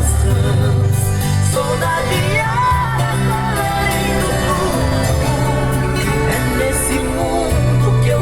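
Sertanejo song music, apparently an instrumental passage: a wavering melodic lead over a steady bass line.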